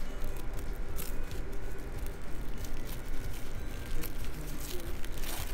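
Tissue paper rustling and crinkling in the hands as a tissue-paper-wrapped package is handled and its wrapping picked open, a few short crinkles over a steady low background hum.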